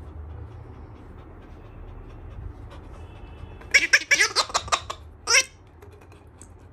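A shaken dog sound-ball toy setting off its noise-maker: a loud, quick run of sounds for about a second, some four seconds in, then one more short sound just after.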